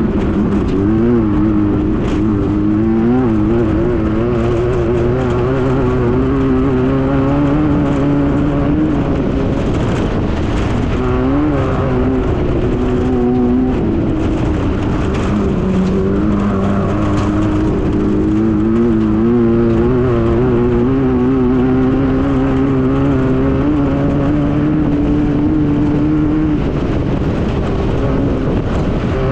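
A Class 9 desert buggy's air-cooled VW flat-four engine running hard through a long stretch. Its revs keep rising and falling with the throttle, with a few short knocks over rough ground.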